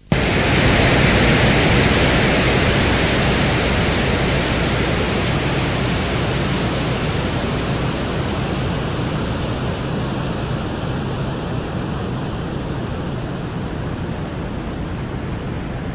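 Atmospheric wind on the surface of Venus, recorded by the Venera 14 lander's microphone: a loud, steady rushing hiss that starts abruptly, its brighter upper part slowly dulling.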